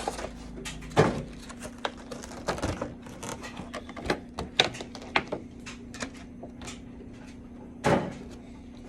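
Cardboard collector box being pried open and handled: a run of irregular clicks, taps and thumps, loudest about a second in and again near the end.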